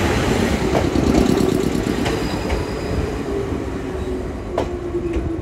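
Kishigawa Line electric train running on the rails: a steady, loud rumble with a held tone and a few sharp clicks.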